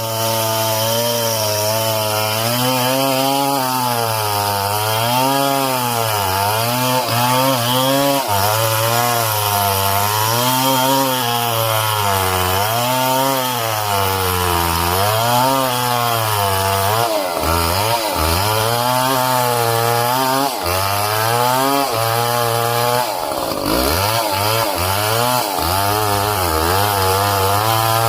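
Stihl MS 070 chainsaw, a large single-cylinder two-stroke, cutting through heavy timber. Its engine pitch keeps dropping and recovering as the chain bogs under load in the cut, and it sags deeply twice, about two-thirds of the way through and again near the end.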